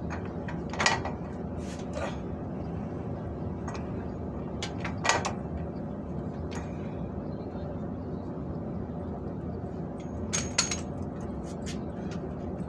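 Hand tools clinking and knocking on the steel steering linkage while fitting a new tie rod end: scattered sharp metallic clinks, the loudest about a second in, about five seconds in and near the end, over a steady low hum.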